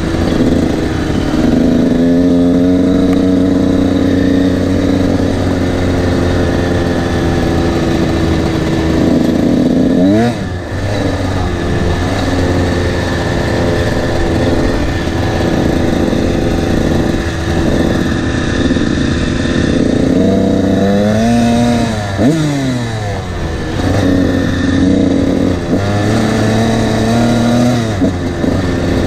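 Honda CR125 two-stroke single-cylinder dirt bike running at a steady cruise, revving up and shifting about ten seconds in and again around twenty seconds in.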